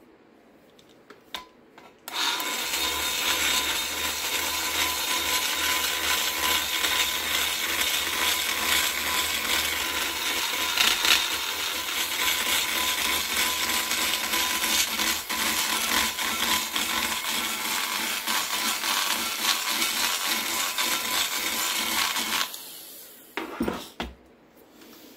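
A high-speed die grinder spinning a carbide burr, cutting into the cast-iron port of an EQ Vortec cylinder head to reshape the short side radius. It starts abruptly about two seconds in, grinds steadily for about twenty seconds, then cuts off and winds down, followed by a couple of knocks.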